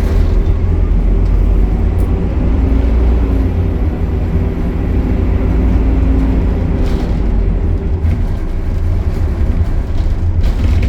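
Optare Solo single-decker bus's diesel engine running, a steady deep rumble with a constant hum above it.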